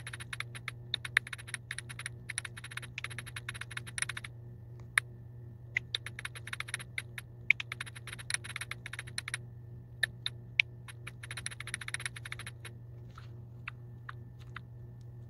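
Typing on a smartphone's on-screen keyboard: runs of quick taps with short pauses, thinning to a few single taps near the end, over a steady low hum.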